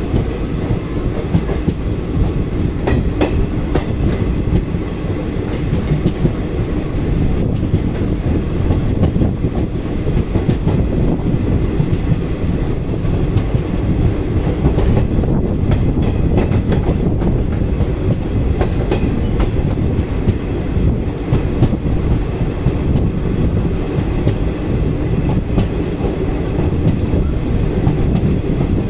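Passenger express train running along the track: a steady, loud rumble and rattle of wheels on rail, with a few faint clicks from the track.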